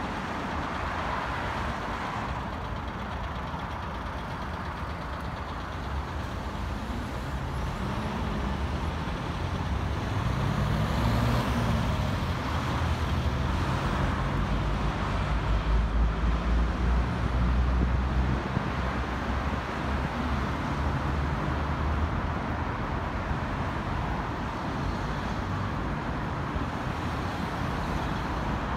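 City street traffic noise, with a large vehicle's engine running close by. It grows louder and rises and falls in pitch from about a fifth of the way in until a little past the middle, then settles back to steady traffic hum.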